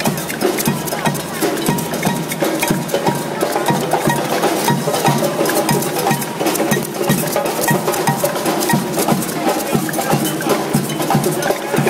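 A percussion band drumming a fast, steady rhythm on hand drums, tall standing drums and a snare drum. A stick striking a small handheld instrument adds a high, ringing beat over the drums.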